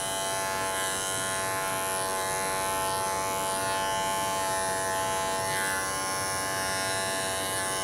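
Electric dog grooming clippers running with a steady, even hum.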